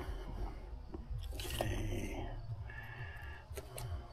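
Small objects being handled and shifted about on a tabletop, with scattered crinkly rustles, the clearest about a second and a half in, over a steady low rumble.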